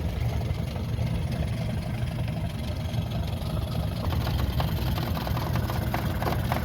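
Small boat's outboard motor idling steadily, with a few light clicks and knocks in the second half.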